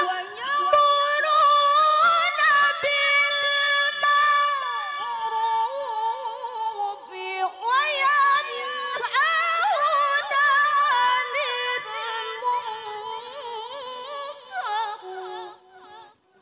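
A woman's Qur'an recitation in melodic tilawah style through a microphone, with long held notes ornamented with slides and trills. The voice stops shortly before the end.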